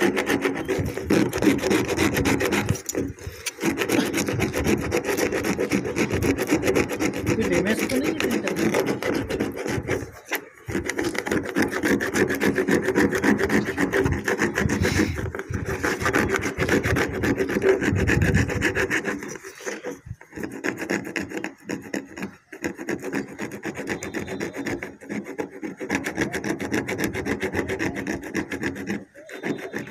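A flat steel hand tool filing back and forth over the cut rim of a freshly drilled hole in a plastic water tank, a continuous rasping scrape broken by short pauses every few seconds. The rim is being smoothed flat so the tank connector will seat without leaking.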